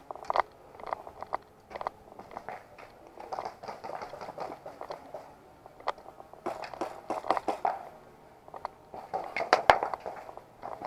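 Footsteps crunching on gritty ground, in bursts of quick steps with pauses between. There is one sharper, louder click near the end.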